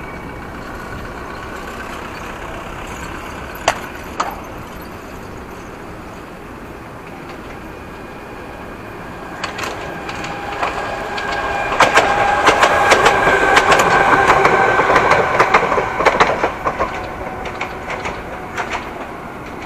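Euskotren unit 308, a CAF narrow-gauge electric multiple unit, approaching and running past on the track. The rumble grows, and the wheels clatter over the rail joints with a steady whine. It is loudest a little past the middle, then fades as the train moves away.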